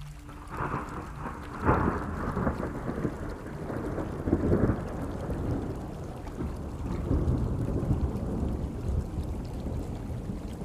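Thunderstorm: rolling thunder over steady rain, with a sharp loud clap about a second and a half in, another about halfway, and a long low rumble between and after them.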